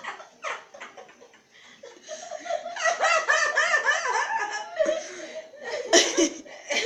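Laughter, fairly quiet for the first two seconds, then breaking out into a long run of hearty, gasping laughs, with a loud sudden burst near the end.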